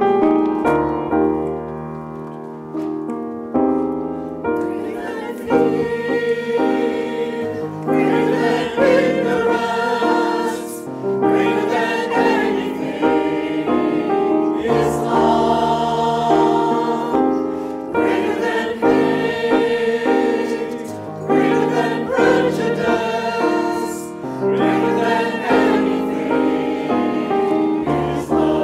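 Grand piano playing alone, joined about four seconds in by a mixed choir of men's and women's voices singing with the piano accompanying.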